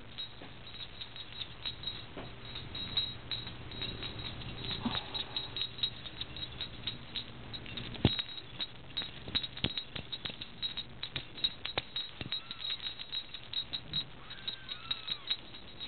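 Young Persian kittens' paws and claws scrabbling on cloth: a stream of irregular light clicks and taps over a faint low hum, with a couple of faint kitten mews near the end.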